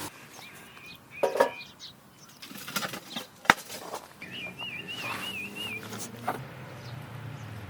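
A songbird singing a wavering, warbling whistle for about a second and a half midway, with a few short chirps earlier. Several sharp knocks or clicks come in the first half, the loudest about three and a half seconds in.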